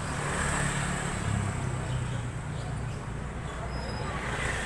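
Steady road traffic noise with a low engine hum, and faint voices in the background.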